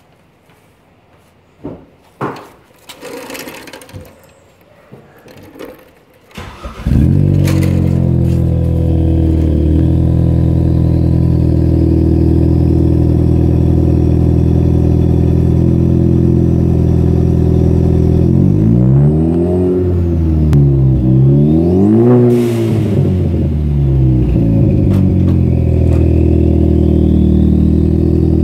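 2016 Ford Focus ST's 2.0-litre turbocharged four-cylinder, heard at the tailpipes of an MBRP full exhaust with a catless downpipe, cold-starting. After a few faint knocks and rustles the engine fires about seven seconds in and settles to a steady idle. Later it is revved twice in quick succession before dropping back to idle.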